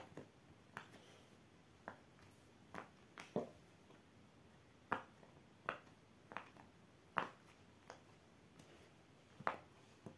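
Bubbles of a large silicone pop-it fidget toy being pushed in by fingers: about fifteen short pops at uneven intervals.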